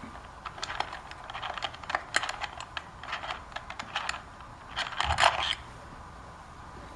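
Light metallic clicks and ticks of a Torx driver backing out the long screws that hold the stock air filter, with a louder scrape about five seconds in, then it goes quiet.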